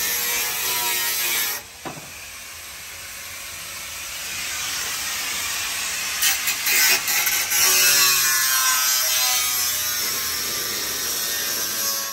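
A power tool cutting into the car's sheet-metal rear fender, its motor whine dipping and rising as it bites, with a short break about two seconds in.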